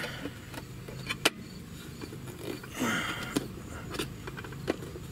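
Sharp clicks and knocks as the inner panel of a MidNite Solar photovoltaic combiner box is pressed and fitted into place by hand, the loudest click about a second in, over a steady low rumble.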